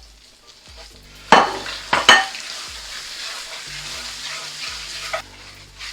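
Spices frying in hot ghee in a pot, sizzling steadily while being stirred, after a couple of sharp knocks against the pan about a second and two seconds in. The sizzling drops away near the end.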